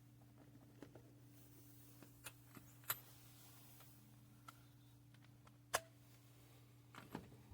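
Near silence: a faint steady low hum with a few soft, isolated clicks.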